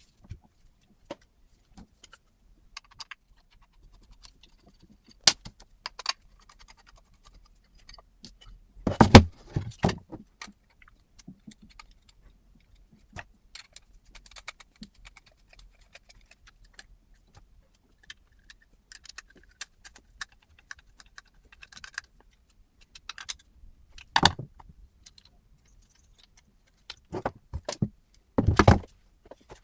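Small metal parts being handled: scattered light clicks and clinks, with a few heavier knocks about nine seconds in, around twenty-four seconds, and near the end.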